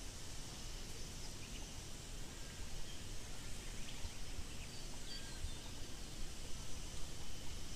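Outdoor bush ambience: a steady low rumble of wind on the microphone, a faint steady high insect hum, and a few short, scattered bird chirps.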